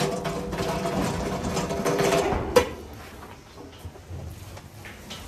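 Steady mechanical rattle and whir of a feed cart being moved. It ends in a single sharp knock about two and a half seconds in, and the rest is quieter.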